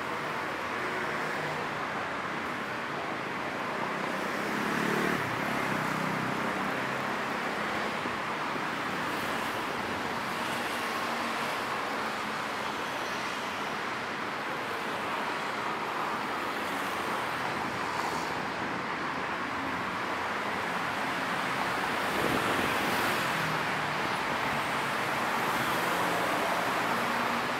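Steady road traffic: a continuous rush of cars and other motor vehicles. Passing vehicles come closer and louder about five seconds in and again a little after twenty-two seconds.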